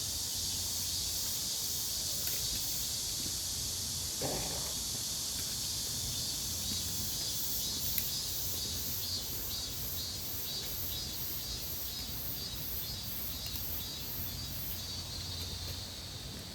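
Insects chirping steadily, a high shrill hiss with a rhythmic pulse about twice a second, and a short low sound about four seconds in.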